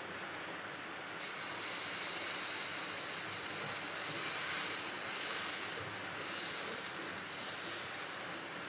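Dosa batter sizzling on a hot tawa as it is poured and spread in circles with a ladle. The sizzle starts about a second in, over a fainter hiss before it.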